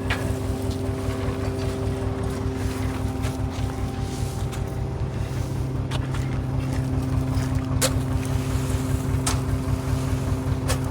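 Heavy machinery running steadily, a deep rapid throb under a constant hum, with a few sharp clicks.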